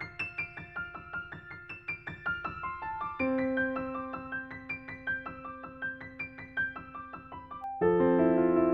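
Background music: a gentle piano or electric-piano piece playing quick runs of notes over held bass notes, growing fuller and louder near the end.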